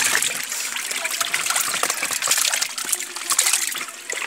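Water splashing and churning as a crowded mass of harvested fish thrashes at the surface of a biofloc tank, with a plastic basket scooping among them: a dense, continuous crackle of many small splashes.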